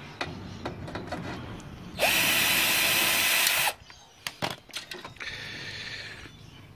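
Cordless drill-driver running steadily for about a second and a half, spinning out a screw on the server's front panel. Then several sharp knocks and clicks as the panel is worked loose.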